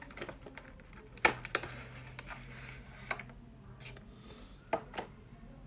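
Paperboard retail box being opened by hand: scattered sharp clicks and taps of the cardboard flaps and box, the loudest about a second and a quarter in, as the inner tray is slid out.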